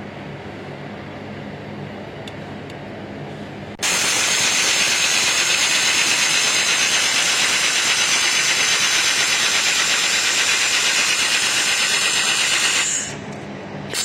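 Laser welding machine at work: a low machine hum, then about four seconds in a loud, steady hiss switches on abruptly as a weld is run, and cuts off near the end.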